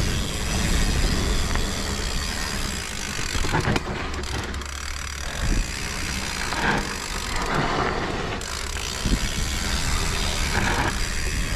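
Mountain bike descending a dirt forest trail: tyres rolling over dirt and leaves with the bike rattling and the freehub ticking, under a heavy rumble of wind on the microphone. A few sharper knocks come over bumps.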